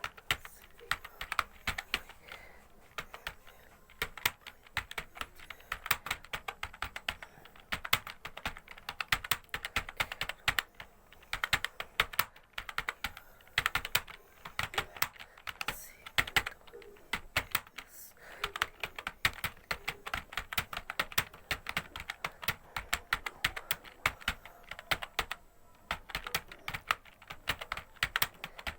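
Fast touch-typing on a computer keyboard: a rapid, uneven run of key clicks, with a few brief pauses along the way.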